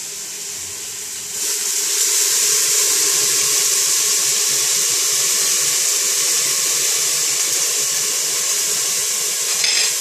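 Hot water poured from a glass kettle into a hot pan of stir-fried abalone: a steady loud rush of pouring water that starts about a second and a half in and runs on, with a brief sharper sound near the end.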